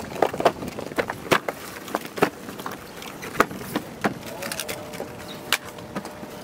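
Cardboard boxes being handled and loaded into a car's boot: irregular knocks, scrapes and rustles of cardboard against cardboard and the boot floor.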